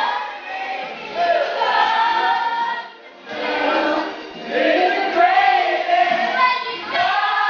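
A choir singing in long held notes, breaking off briefly about three seconds in before going on.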